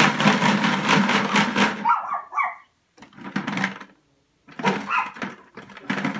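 Loose plastic markers clattering and rattling inside a plastic five-gallon bucket as they are shaken and rummaged through, in two bouts with a short lull in between.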